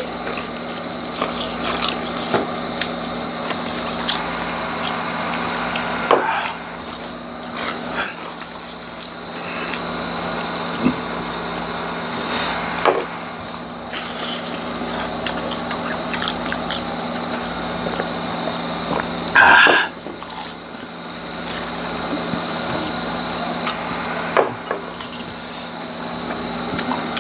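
Crunching and chewing of crispy deep-fried chicharong bulaklak (pork mesentery), with irregular sharp crackles as the crisp pieces are bitten and broken apart, over a steady low hum. A brief louder sound comes about two-thirds of the way in.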